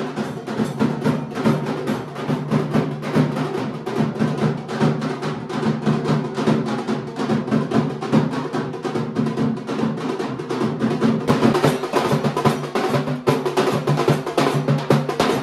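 Fast, continuous drumming over steady pitched tones, loud and unbroken.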